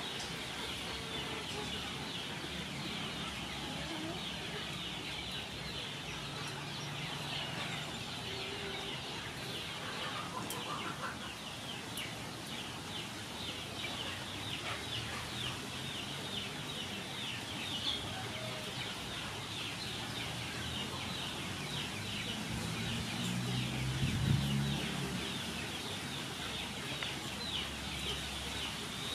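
Chickens, a hen and a rooster, clucking softly as they forage, over a steady background of rapid high-pitched chirping. A louder low sound comes about three quarters of the way through.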